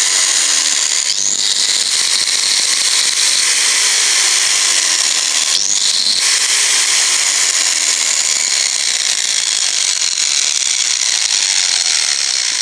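Bosch GWS660 angle grinder running free at full speed with a steady high whine, with a brief pop about a second in and another about six seconds in. It starts to wind down at the very end. The owner calls the sound poppy and suspects its carbon brushes are worn out.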